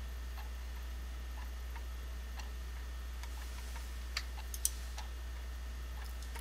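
Steady low hum with faint ticking about once a second, and two sharper clicks a little past four seconds in.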